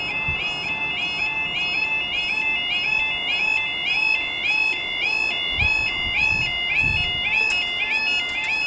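Level crossing warning alarm: an electronic two-tone yodel stepping rapidly between two high pitches, repeating steadily, the signal that a train is approaching and the barriers are coming down. A few sharp clicks sound near the end.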